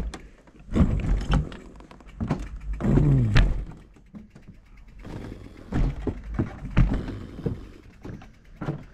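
Fat bike and rider on loose, worn wooden boardwalk planks: irregular knocks and thunks as the boards shift and bang under the tyres and feet, loudest about a second in and again about three seconds in.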